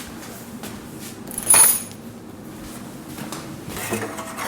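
A sharp metallic clink of hard objects knocking together, about one and a half seconds in, with light handling noise around it.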